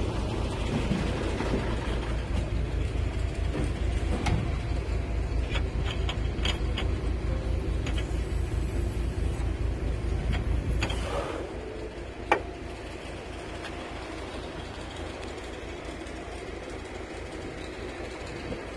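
Fuel-transfer pump running steadily with a low throb while fuel is pumped into the storage tank, cutting out about eleven seconds in. A single sharp click follows a second later.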